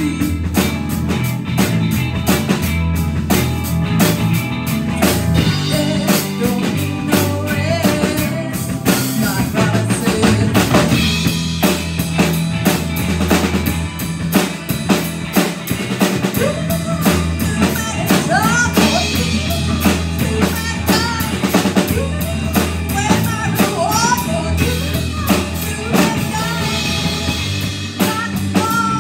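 Live rock band playing: a drum kit keeps a steady beat with bass drum and snare, under electric bass, electric guitar and keyboard.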